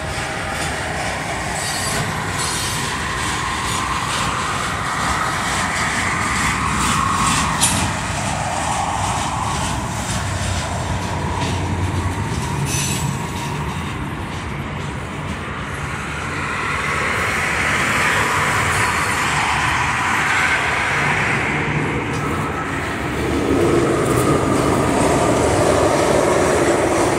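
Union Pacific freight train of flatcars rolling past, a steady rumble of steel wheels on rail with a few sharp clicks.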